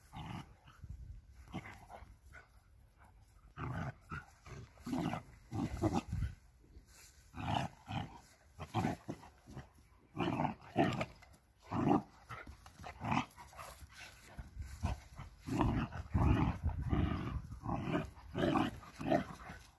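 An Alabai (Central Asian Shepherd Dog) adult and puppy growling at each other in rough play: many short growls one after another, more and louder in the second half.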